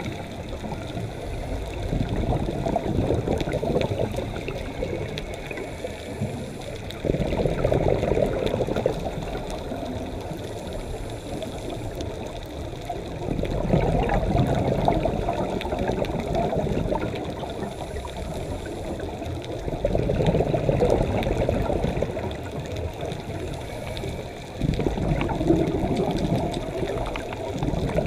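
Scuba diver's exhaled bubbles rumbling out of the regulator in swells of two to three seconds, about every five to six seconds, over a steady underwater hiss.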